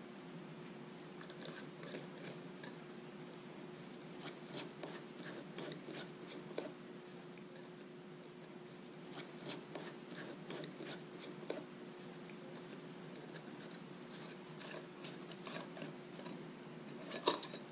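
Scattered light clicks and taps of gloved hands handling PVC fittings and the metal cans of PVC primer and solvent cement, with one sharper click near the end, over a faint steady hum.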